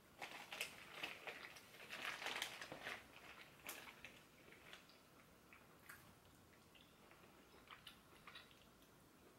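Close-up eating sounds from snow crab legs: chewing with small crackles and clicks as the legs are picked apart, densest in the first three seconds, then only scattered clicks.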